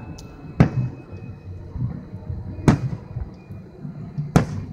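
Fireworks shells bursting in the sky: three sharp bangs about two seconds apart, each with a short echoing tail.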